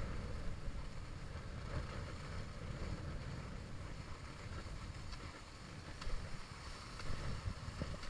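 Wind buffeting the microphone of a skier's camera as it moves downhill, a steady low rumble, with the faint hiss of skis gliding over groomed snow and a few light clicks.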